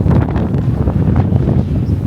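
Wind buffeting the camera microphone, a loud, uneven low rumble.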